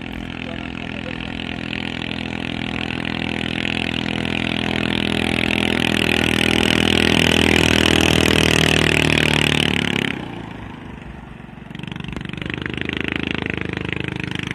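Small racing boat's engine running at speed, getting steadily louder as the boat comes close. About ten seconds in the loud engine cuts off abruptly, and a quieter engine sound comes back a couple of seconds later.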